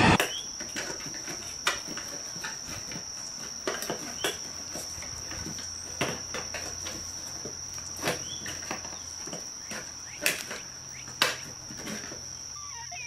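Insects trilling in one steady, unbroken high-pitched tone, with scattered sharp clicks over it.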